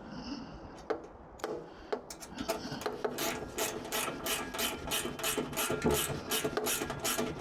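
Small ratchet wrench clicking in a quick, even run as a 10 mm nut is run down onto a bolt, starting about two seconds in after a few scattered clicks.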